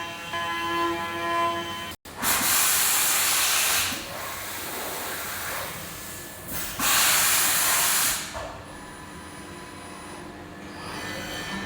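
Hermle five-axis CNC machining centre cutting aluminium. A steady pitched whine cuts off about two seconds in, followed by two loud bursts of hissing spray, each under two seconds long, with quieter machine running noise between and after them.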